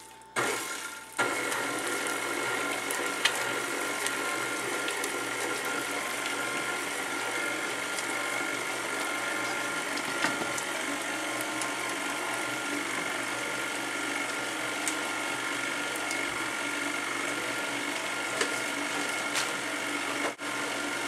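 KitchenAid tilt-head stand mixer running on low speed, its flat beater working boiled sweet potato and softened butter in a stainless steel bowl. The motor and gears come on after a couple of knocks about a second in, then run with a steady, even whir.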